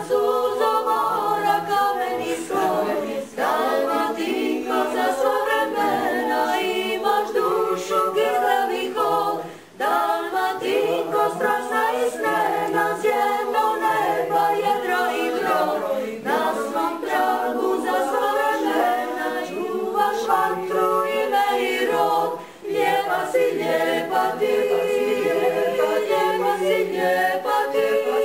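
A cappella choir singing: several voices in harmony without instruments, with a few short breaks between phrases.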